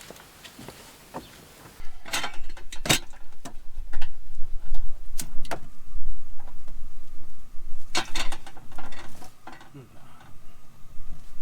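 Clicks and knocks of camp cooking gear being handled as water is set to boil on a stove, over a low rumble that starts about two seconds in.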